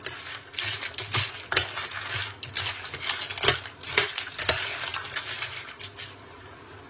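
Cooking utensil stirring and scraping food in a pan, a dense run of clattering knocks and scrapes that stops about six seconds in.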